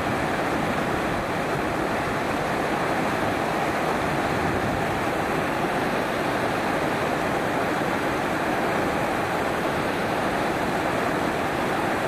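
Tall waterfall pouring down a rock face onto the rocks below: a steady, unbroken rush of falling water.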